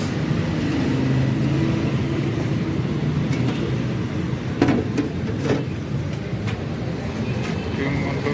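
Steady low rumble of road traffic, with a few sharp knocks about halfway through.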